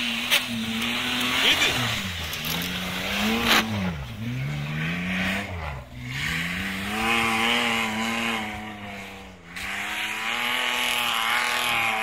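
Off-road 4x4's engine revving hard and repeatedly, the pitch rising and falling every second or two and holding high from about the middle on, with a steady hiss of tyres churning through deep snow. Two sharp knocks in the first few seconds.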